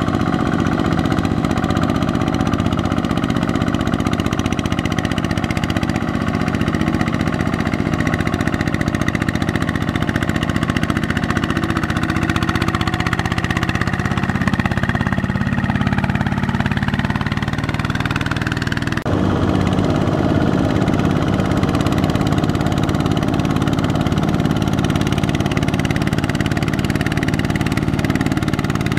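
Single-cylinder diesel engine of a two-wheel walking tractor running steadily under load as it hauls a loaded trailer through deep mud. The engine note shifts slightly midway and breaks off abruptly about two-thirds of the way through, then carries on at the same steady level.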